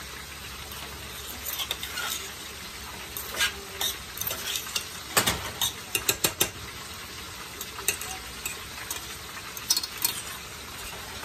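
A spoon stirring rice pilaf in a pan, scraping and clicking against the pan in irregular strokes, over a steady sizzle of frying.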